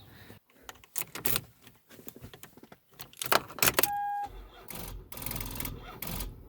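Clicks and rattles of handling, then a short electronic beep from the portable jump starter switching on about four seconds in. After that, a low, uneven repeating churn: the Toyota Sienna's starter trying to crank the engine on a weak battery.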